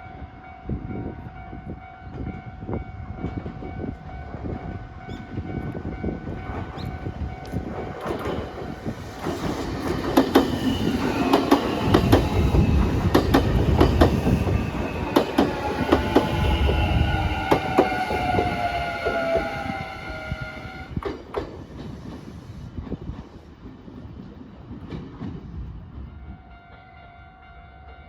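A Nankai Railway electric train passes over a level crossing while the crossing warning bell rings. The bell starts it off; the train gets loud about a third of the way in, its wheels clacking over the rail joints, and falling tones sound as it goes by. It fades away near the end, leaving the bell ringing on.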